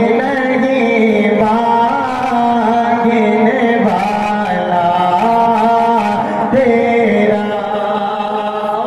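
A man's solo voice singing a naat, an Urdu devotional poem in praise of the Prophet, into a microphone, with long held notes that bend and slide between pitches.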